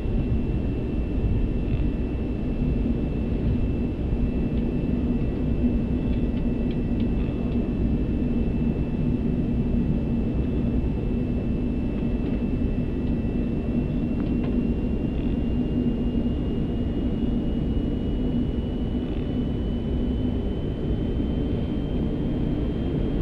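Airbus A380 cockpit noise while taxiing onto the runway at low engine thrust: a steady low drone with a faint high whine that rises slightly in pitch in the second half.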